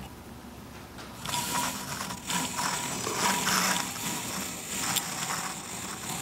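Scraping and rustling handling noise with a few light clicks, as steel digital calipers are slid into place against a machined cast-iron edge.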